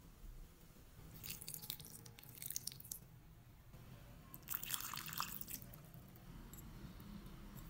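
Liquid marinade, dark soy and oyster sauce among it, poured onto raw sliced beef in a glass bowl: two short wet, dripping pours, about a second in and again about four and a half seconds in.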